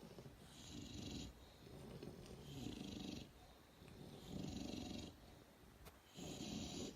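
English bulldog snoring in its sleep: four even snores, about one every two seconds.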